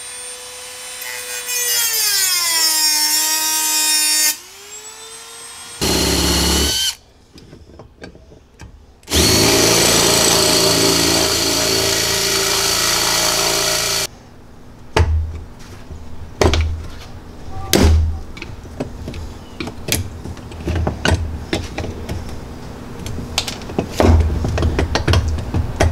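A Dremel rotary tool with a cut-off wheel whines against a steel security bolt, its pitch sagging under load for a couple of seconds and then recovering. Later, a Makita 18-volt cordless drill drills into the bolt for about five seconds. After that come scattered clicks and knocks of tools and parts being handled.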